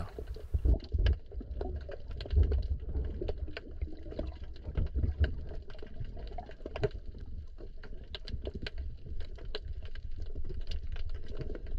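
Underwater ambience picked up by a diving camera: a low rumble of moving water with many small, irregular clicks and crackles.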